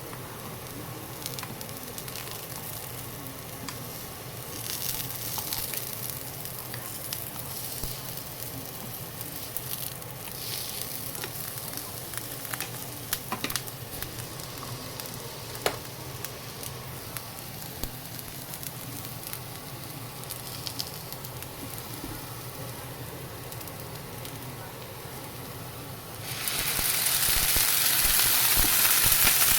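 Daikon radish steaks frying in a pan: a steady, fairly quiet sizzle with scattered clicks and taps. Near the end the sizzle suddenly jumps to a much louder, brighter hiss.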